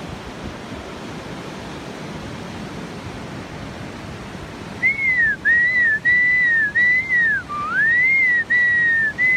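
A steady rushing noise, then about halfway in a person whistles to call the dog back: a string of clear, high whistled notes, each dipping at its end, with one swoop down low.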